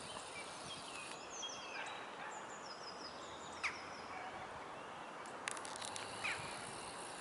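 Faint outdoor ambience of small birds chirping, with two short, louder downward bird calls about four and six seconds in and a few faint clicks between them.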